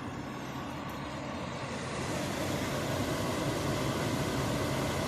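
HomeLabs HME020030N 30-pint dehumidifier running with its compressor and fan on, a steady airy whoosh over a low hum that grows a little louder about two seconds in; it is working normally and has just begun dripping condensed water.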